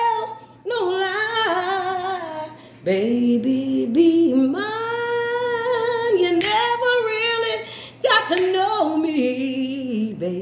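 A woman singing unaccompanied: long, drawn-out notes with no clear words, wavering with vibrato and sliding between pitches, in four phrases with short breaths between them.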